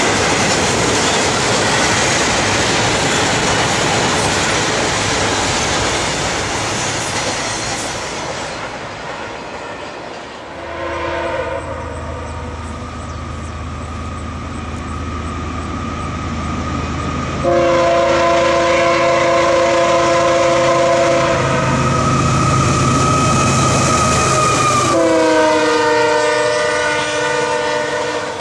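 Double-stack intermodal freight cars rumbling and clattering past on the rails. About ten seconds in, an approaching diesel freight locomotive sounds its multi-chime air horn in several long blasts over a low engine rumble. Near the end the horn chord drops slightly in pitch as the locomotive passes and its hopper cars begin rolling by.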